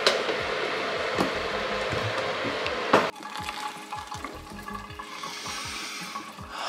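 A steady loud hiss that stops abruptly about three seconds in. Then hot water is poured from a kettle onto coffee grounds in a paper filter, splashing and fizzing as it soaks the grounds, and grows louder near the end.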